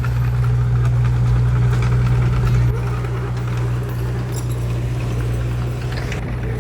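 Heavy diesel engine of earth-moving machinery running steadily with a deep drone, easing slightly in level about a third of the way in.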